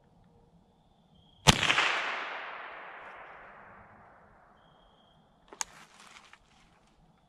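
A single shot from a scoped rifle about a second and a half in, its echo rolling through the woods and dying away over about three seconds. A short cluster of clicks and rustles follows near the end.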